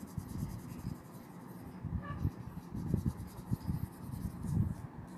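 Coloured pencil scratching back and forth on paper in short, irregular strokes as a small area is shaded in.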